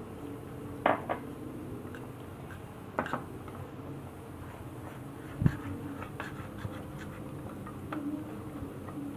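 Metal spoon scraping and clinking against a ceramic bowl while stirring flour and water into a thin slurry. Scattered short taps, with a louder low thump about five and a half seconds in, over a steady low hum.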